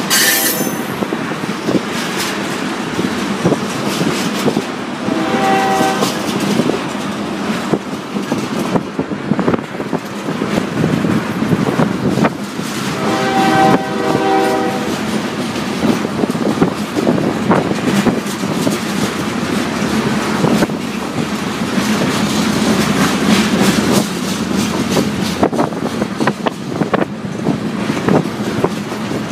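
Diesel freight locomotive horn sounding twice, a short blast about five seconds in and a longer one of about two seconds near the middle, over the continuous rumble and clatter of train wheels rolling on rails.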